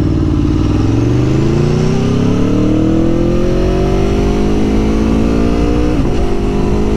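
2021 Aprilia Tuono Factory motorcycle engine pulling away from a standstill, its pitch rising steadily for several seconds as the bike accelerates, then levelling off. There is a brief break in the note about six seconds in.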